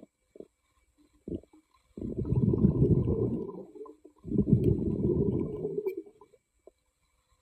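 Diver's exhaled air bubbling out underwater, two long rumbling breaths of about two seconds each, the first starting about two seconds in, with a few short faint knocks before them.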